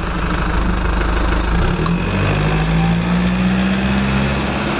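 A steady mechanical rumble with a low, even hum underneath, running without a break.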